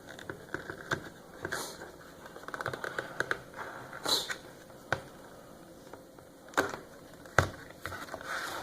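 Clicks, taps and light rattling from a plastic kids' tablet and its snug-fitting protective case being handled, with a few sharp knocks, the loudest about seven and a half seconds in.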